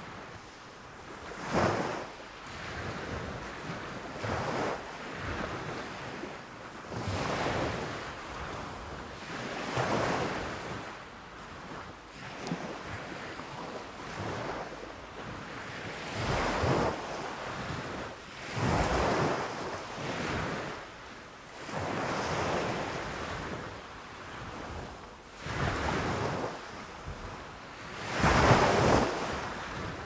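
Small waves breaking and washing up a sandy beach, foamy surf rising and falling in irregular surges every two to three seconds, the loudest near the end.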